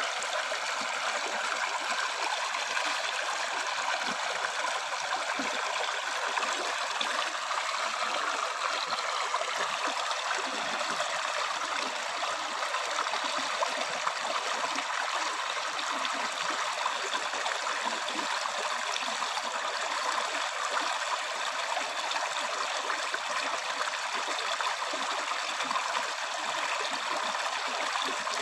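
River or stream water flowing over stones, a steady babbling rush with no change in level.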